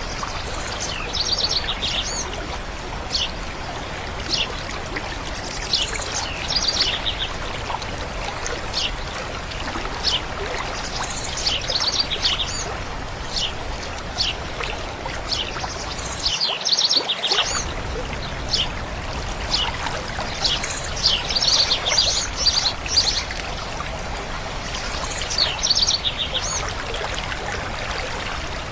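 Flowing stream running steadily, with songbirds singing short high trilled phrases every few seconds over it.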